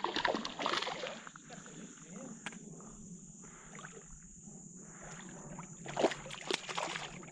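Kayak paddle strokes splashing in shallow river water, with a few short knocks, busiest in the first second and again about six seconds in.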